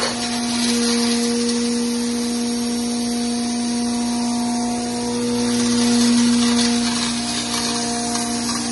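Masala pulverizer grinding machinery running steadily: a constant motor hum with a few fixed tones over a grinding hiss.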